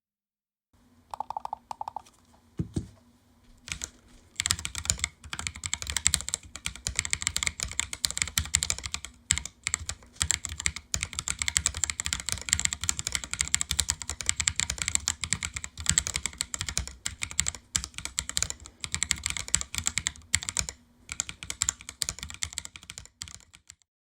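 Typing on a homemade Silakka54 split mechanical keyboard: a few scattered keystrokes at first, then a fast, continuous patter of key clicks from about four seconds in, broken by a few short pauses.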